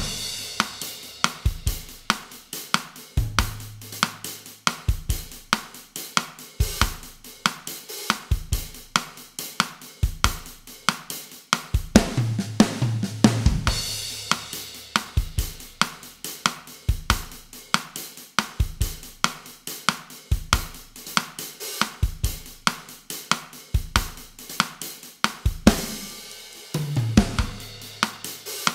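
Drum kit playing a bossa nova groove at 140 bpm, a steady pattern of cymbal, snare and bass drum strokes. A fill with a cymbal crash breaks the pattern about halfway through and again near the end.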